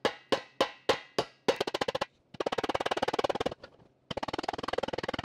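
Light hammer taps on a 1969 Triumph TR6 Rostyle wheel cover, tapping a dent back into shape. Separate taps about three a second at first, then from about a second and a half in, fast flurries of taps broken by short pauses.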